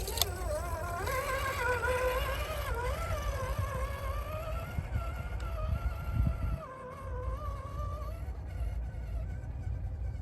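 RC crawler truck's electric motor and gear drive whining, the pitch rising and falling as the throttle is worked, fading out about eight seconds in. A low rumble runs underneath.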